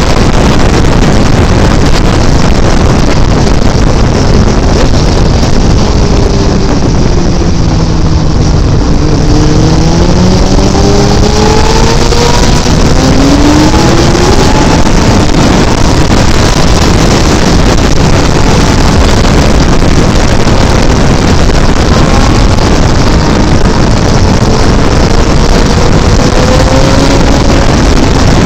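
Loud, steady wind noise on a microphone carried at road speed, with a faint engine note rising and falling a few times midway and again near the end.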